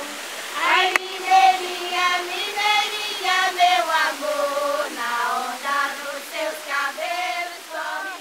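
A washerwomen's choir of high women's voices singing a folk song unaccompanied, in long held notes.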